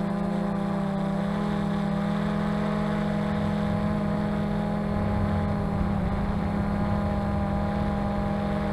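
XK X380 quadcopter's motors and propellers running with a steady hum, picked up by the camera on the drone itself, over a low uneven rumble.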